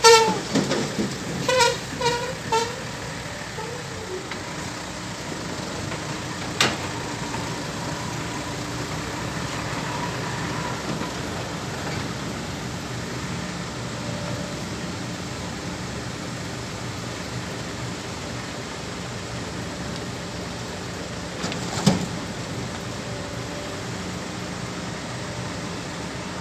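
Heavy diesel earthmoving machinery running steadily, while a vehicle horn toots about five short times in the first three seconds. A couple of sharp knocks stand out, one early and one near the end.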